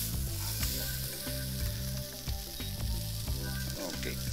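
Food sizzling in a hot, smoking frying pan: a steady sizzling hiss with small crackles, as the pan is stirred.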